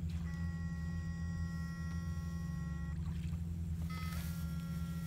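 Backpack electrofishing shocker running with a steady low buzzing hum. Over it sits a high-pitched whine of several tones that comes on just after the start, cuts off about three seconds in and starts again about a second later, as the current to the poles is switched on and off.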